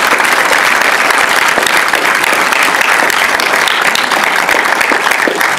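Large audience applauding, a dense steady clatter of many hands clapping that eases off slightly near the end.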